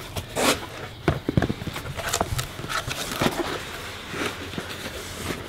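Cardboard shipping box being opened by hand: flaps bent back and packing handled, giving irregular knocks, scrapes and rustles.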